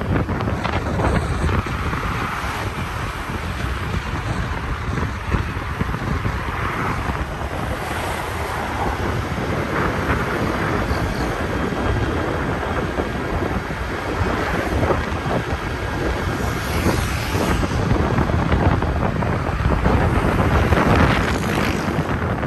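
Wind buffeting the microphone over the steady road and engine noise of a moving vehicle, swelling and easing as it goes.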